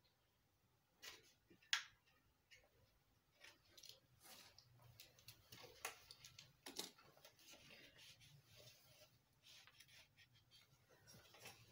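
Faint, scattered clicks and taps of hands and tools on the plastic housing of an opened HP ScanJet G3110 flatbed scanner, then soft rubbing as a cloth wipes the inside.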